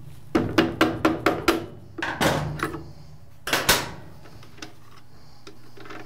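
A wrench working the spark plug loose from a small two-stroke leaf blower engine: a quick run of metal clicks, about four a second, then two louder knocks of metal.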